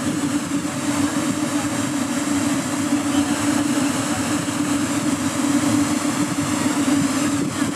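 Steady, even hum of a swarm of several hundred light-show drones hovering, their propellers blending into one drone-like tone over a noisy background.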